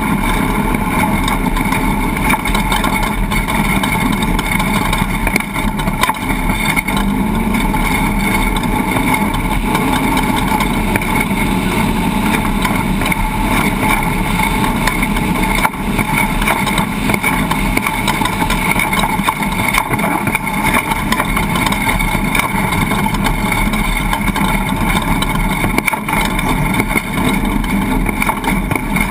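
A loud, steady engine or motor running at an unchanging speed, with a constant hum.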